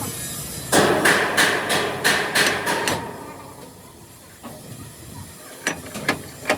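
Hammer blows on metal: a run of about eight strikes at roughly three a second, then a pause and a few lighter knocks near the end.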